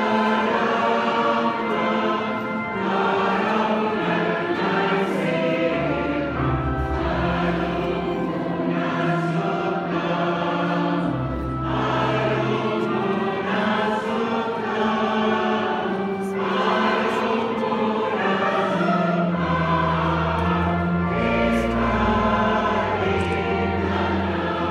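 Choir singing a slow hymn in sustained chords, over low held notes from a pipe organ that change every few seconds.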